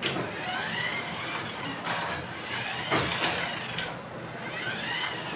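Toy RC car's electronic siren sound, a pitch that rises and falls in repeated wails about a second long. There is a sharp knock about three seconds in.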